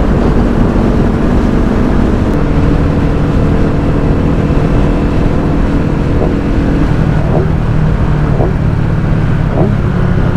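Kawasaki Ninja sport bike engine running at a steady highway cruise, mixed with heavy wind rush on a helmet-mounted microphone. The engine's pitch shifts slightly about seven seconds in.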